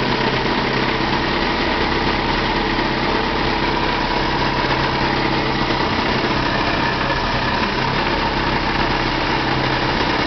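1966 Ford Ranchero engine idling low with the air conditioning running, a steady rumble, more like a loud growl. The owner takes it for the original air-conditioning compressor's clutch and bearings going, worn enough to need a new compressor.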